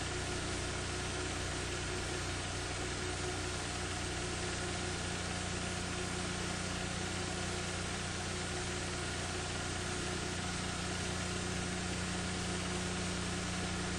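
Steady hiss with a low, even hum and a few faint steady tones: background noise of a recording with no live sound on it.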